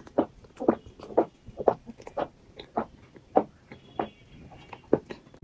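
A person gulping a soft drink from a bottle, one loud swallow after another at about two a second.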